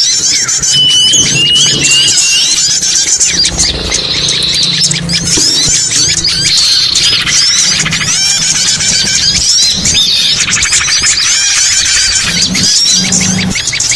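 A dense, overlapping chorus of small songbirds chirping and twittering in high, quick notes, played as a lure call to draw small birds in for trapping. A low hum runs intermittently underneath.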